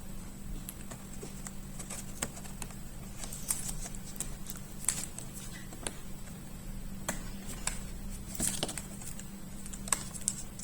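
Scattered small clicks and taps at irregular intervals from hands working on the opened laptop, such as refitting the battery connector and parts, over a steady low hum.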